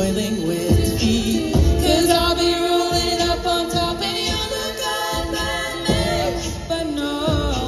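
Women's a cappella group singing held chords in close harmony through microphones and a PA, with low thumps beneath the voices.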